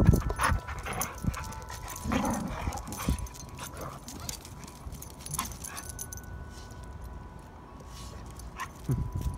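Two dogs play-wrestling, with short dog vocal sounds and scuffling in the first few seconds, then quieter.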